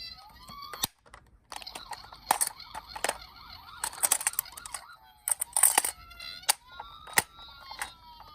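Toy ambulances sounding electronic sirens while their plastic bodies clatter and click against each other. A warbling siren tone runs under the repeated clatter, and a slower siren sweep begins near the end.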